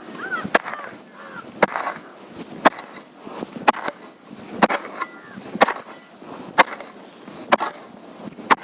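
A digging hoe chopping into dry, hard soil in sharp strikes about once a second, with birds chirping faintly between strokes.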